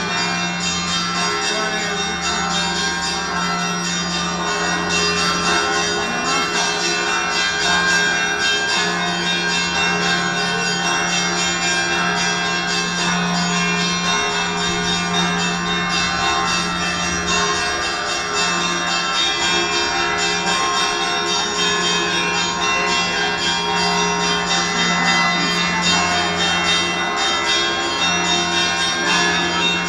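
Russian Orthodox monastery bells ringing continuously, many bells of different pitches sounding together and overlapping in a dense, steady peal. A deep low tone underneath swells and fades again and again.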